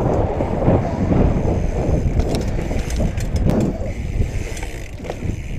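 BMX bike rolling along, giving a steady low rumble of tyres and rushing air. A scatter of sharp clicks and rattles from the bike comes through in the middle.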